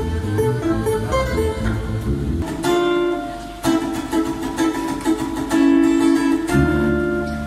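Acoustic guitars and a ukulele strumming chords together in a small room, with a deeper bass line joining near the end.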